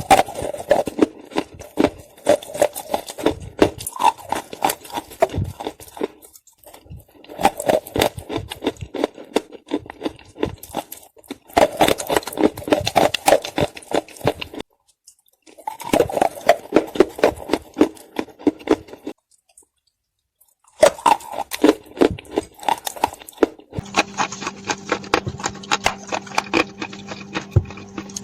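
Chunks of clay being bitten and chewed close to the microphone: dense crunching in several stretches, broken by short silent gaps. A steady low hum comes in near the end.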